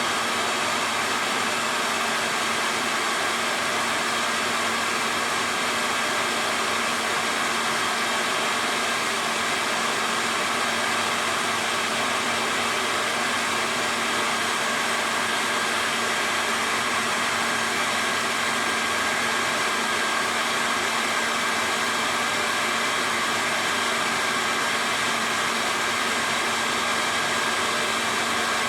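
Hair dryer blowing steadily, heating a plastic bottle so it shrinks onto the part, with a constant low hum under the rush of air.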